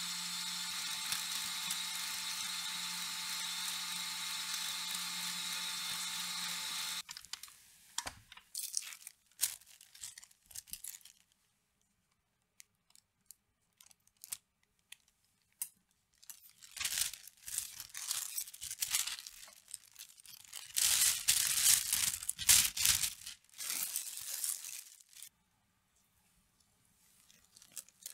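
Stand mixer whipping cream with a steady whir and low hum, which stops abruptly about seven seconds in. Then a disposable plastic piping bag is crinkled and snipped with scissors in irregular bursts, loudest a little after the middle.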